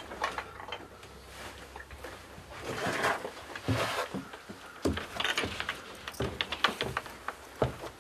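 A wooden hunting blind's door being opened and a person stepping out onto its wooden steps: a scatter of knocks, clicks and scuffs.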